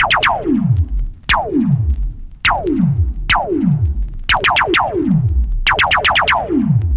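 Synthesized sci-fi laser-gun blasts: sharp zaps that sweep steeply down in pitch, fired singly or in quick volleys of three to five, about once a second.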